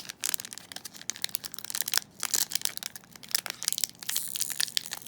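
Crinkling and crackling of a Magic: The Gathering booster pack's foil wrapper being handled, a quick irregular run of sharp crackles.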